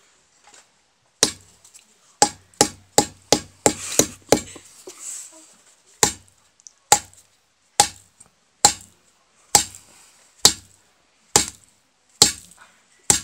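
Baguette used as a hammer, knocking a nail into a block of wood: sharp knocks, a quick run of about eight a couple of seconds in, then a steady stroke about once a second.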